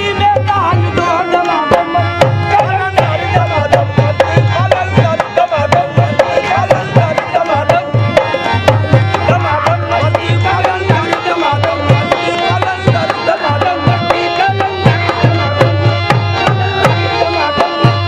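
Qawwali music: a dholak drum beating a steady rhythm under a harmonium and a singer's wavering, ornamented voice.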